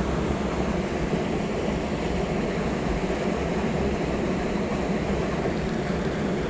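Steady rushing noise of water running through a drain, even and unbroken.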